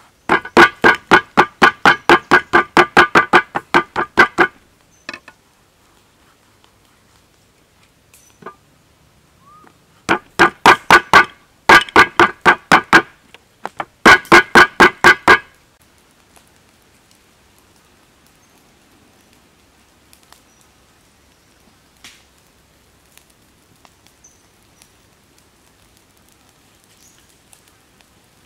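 A large knife chopping eggplant on a thick wooden chopping block: quick, even strokes about five a second, each a sharp knock with a ringing tone from the wood. The chopping comes in four bouts and stops a little past halfway through.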